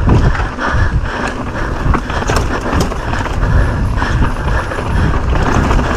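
Downhill mountain bike rattling over rough trail at speed, with wind rushing on the microphone: a loud, uneven rumble broken by frequent small jolts.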